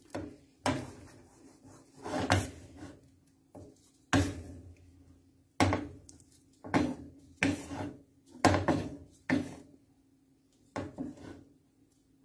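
Wooden spatula scraping and knocking against a frying pan as it turns and presses a lump of cooking cold porcelain dough, in about ten separate strokes roughly a second apart.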